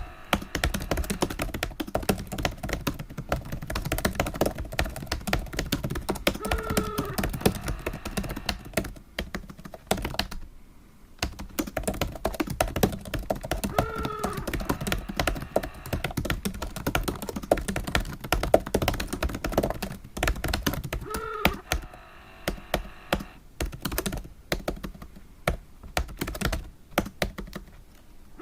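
Fast typing on a computer keyboard, a dense, irregular run of key clicks with a brief pause about ten seconds in. A short bending tone recurs about every seven seconds over the clicks.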